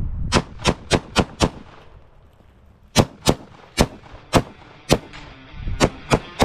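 Springfield Hellion 5.56 bullpup rifle firing at pumpkins: a fast string of five shots, a pause of about a second and a half, then about eight more shots spaced a third to half a second apart. Rock music fades in under the shots about five seconds in.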